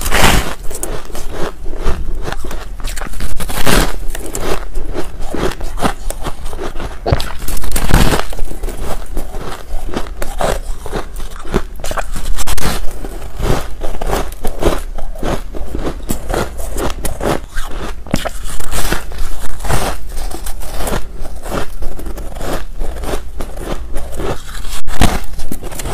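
Soft white snow ice being bitten and chewed close to the microphone: a dense, irregular run of crisp crunches and crackles.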